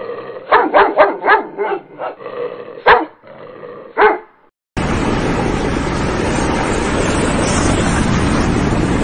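A dog barking: a quick run of short barks, then two single barks about a second apart. After a short break, a steady loud rushing noise takes over.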